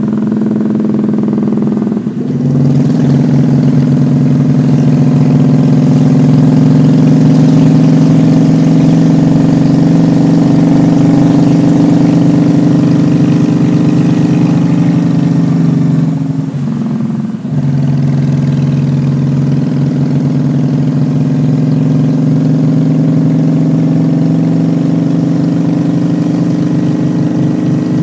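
Honda Shadow's V-twin engine running under way on the road. The engine note drops off briefly twice, about two seconds in and again a little past halfway, as the rider eases off and shifts gear, then picks back up.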